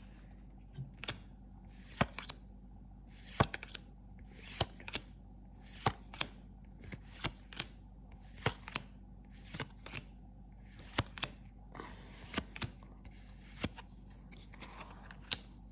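A hand-held stack of Dragon Ball Super Card Game trading cards being flicked through one card at a time, each card snapping against the stack with a short, sharp click, roughly twice a second and unevenly spaced.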